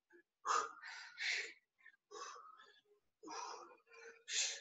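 A person breathing hard while doing reverse lunges: about seven short, forceful breaths in and out, in little clusters with brief pauses between.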